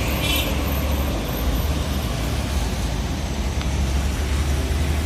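Busy road traffic with buses and trucks passing: a steady low engine rumble and tyre noise, with a brief high-pitched squeal a fraction of a second in.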